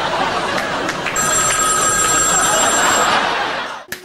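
Studio audience laughing after a punchline, with a telephone ringing for about two seconds in the middle. The sound cuts off abruptly near the end.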